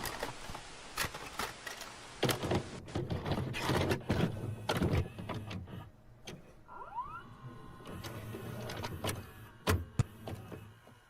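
A run of sharp mechanical clicks and knocks, with a short rising whir about seven seconds in, over a hiss that stops about three seconds in.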